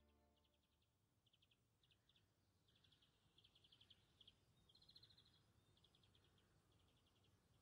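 Faint high-pitched chirping: short trains of rapid pulses repeating one after another, over near silence.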